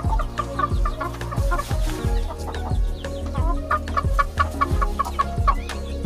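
Chicken clucking in a quick, rapid series over background music with a steady beat.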